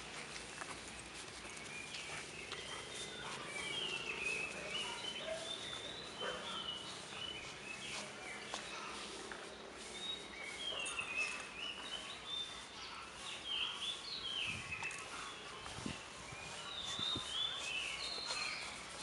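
Small birds chirping on and off in short, quick calls over faint outdoor background noise, with a few soft thumps.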